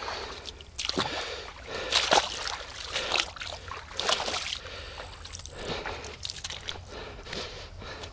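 Water sloshing and splashing in short irregular bursts, about one a second, as a freshly landed wild carp (sazan) is handled in the water.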